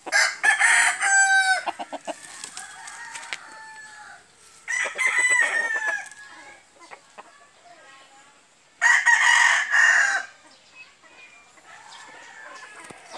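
Roosters crowing: three loud crows about four seconds apart, each lasting about a second and a half, with quieter clucking between them.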